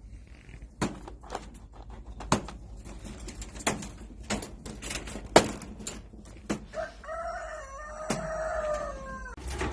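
A rooster crows once near the end, a single long call that falls slightly in pitch. Before it come scattered sharp clicks and knocks.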